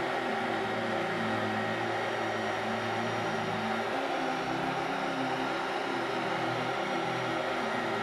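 Hot-air heat gun running steadily, its fan blowing hot air onto a layer of thickened epoxy resin to blow the white foam out into a lacy pattern.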